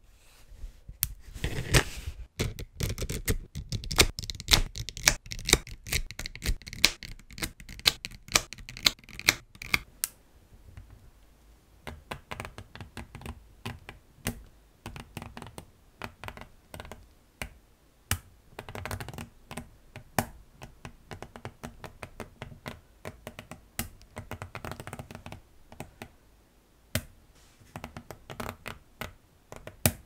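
Small magnetic balls clicking as a chain of them is wound into a hollow cylinder, each ball snapping onto the ones below. A dense, fast run of clicks for about the first ten seconds, then sparser single clicks.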